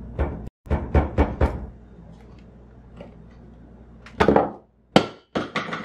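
Plastic knocks and clicks from hands working the stand neck on the back of an Acer SB220Q monitor: a quick run of knocks, a quieter stretch, then a few more knocks and several sharp clicks near the end.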